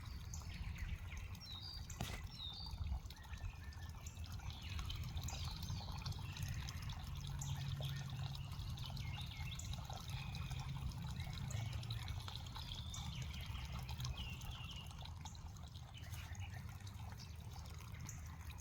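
A small waterfall with only a thin trickle of water running down it, over a low steady rumble, with many short bird chirps in the background. There is one sharp click about two seconds in.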